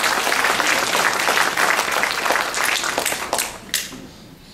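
Audience applauding, many hands clapping together, dying away after about three and a half seconds with a few last claps.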